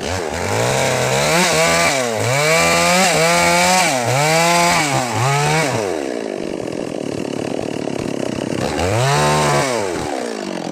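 Two-stroke chainsaw revving up and down about six times in quick succession, then running steadily for a few seconds before one last rev that dies away near the end.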